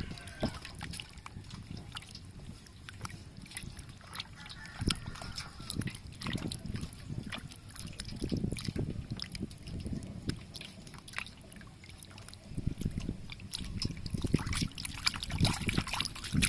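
Water sloshing and splashing in a metal basin as hands scrub a rack of raw pork ribs under the water, with irregular small splashes and drips, busier in the last few seconds.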